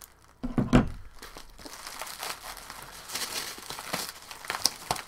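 Packaging being pulled open by hand: a thump about a second in, then steady crinkling and tearing of the wrapping.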